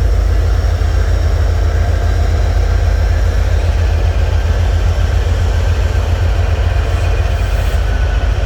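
Steady low rumble of a train, unbroken and even.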